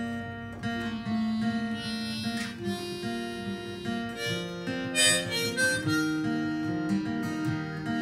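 Harmonica solo, held notes with bends, over strummed acoustic guitar and electric bass: an instrumental break between sung verses.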